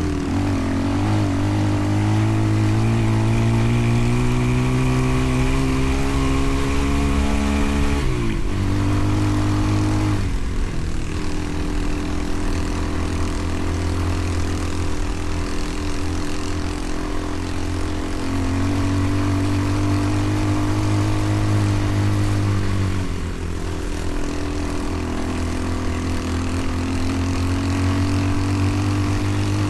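Motorcycle engine running under way, its pitch climbing slowly and then dropping sharply about eight seconds in and again near the end, as with gear changes or easing off the throttle, over steady wind rush.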